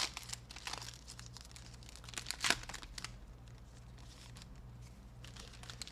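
Foil trading-card pack being torn open and crinkled by hand, dense rustling and crackling with one sharper crackle about two and a half seconds in, then only faint handling ticks.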